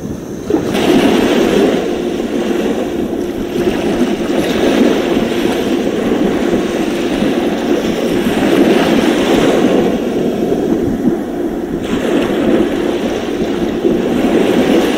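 Surf washing onto a sand beach: a steady rushing that swells and eases, growing louder about a second in.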